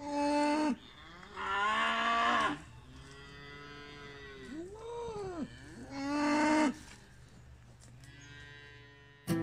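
Cattle mooing: a series of about five long moos from the herd, some sliding up and down in pitch. Guitar music comes in right at the end.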